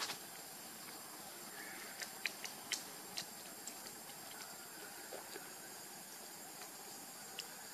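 Quiet forest ambience: a steady hiss with a thin, high, steady tone, and a few small sharp clicks about two to three seconds in.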